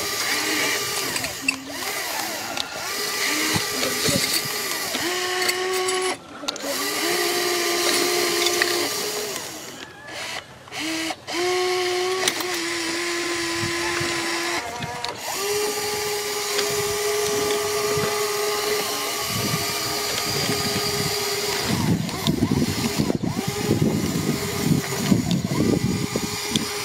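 Electric motors and gearboxes of a Caterpillar 336D-model RC excavator whining in stop-start runs of a few seconds each, the pitch shifting from one run to the next as the boom, arm and bucket are worked. Near the end there is a clatter of tracks and stones.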